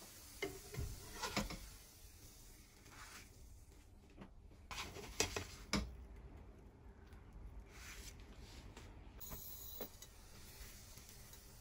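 Light knocks and scrapes of a spatula and spoon against a nonstick frying pan and a glass mixing bowl while chickpea-flour pancakes are flipped and fresh batter is added, with a cluster of louder knocks around the middle.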